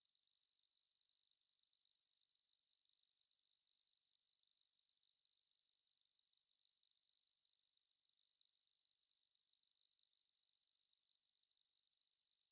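A steady, very high-pitched electronic sine tone that rings unbroken at an even level, imitating the ringing of tinnitus.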